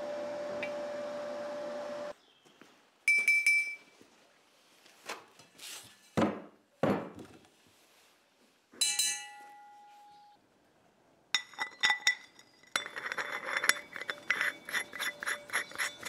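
Steel pipe and plate parts of a home-made float valve housing being handled: scattered sharp metal clinks, some ringing briefly, and a few knocks, then a quick run of rattling clinks and scraping near the end. A steady hum cuts off about two seconds in.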